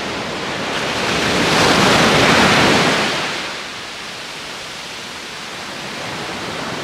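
Winter surf on a sandy beach: a wave breaks and washes up the sand, swelling to a peak about two seconds in and fading by the fourth second, then a steady, lower wash of foam.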